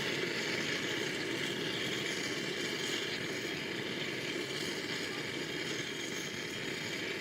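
Gas burner flame with a steady hiss, gas flowing continuously.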